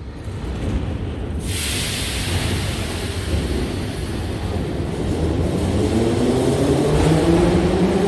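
Metro train pulling out of the station, with a steady low rumble and a high hiss from about a second and a half in. From about six seconds in, the traction motors' whine rises steadily in pitch as the train accelerates.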